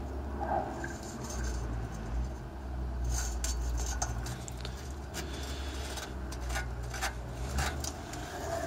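Polski Fiat 126p's air-cooled two-cylinder engine idling steadily, with irregular metallic clinks and rattles from the exhaust downpipe being shaken by hand, most of them in the middle of the stretch.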